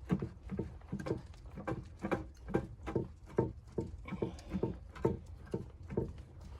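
Footsteps crunching through snow at an even walking pace, about two steps a second, over a steady low rumble.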